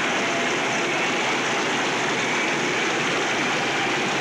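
Concert audience applauding and cheering on a hissy amateur tape recording, a steady dense wash of noise with no music or speech standing out.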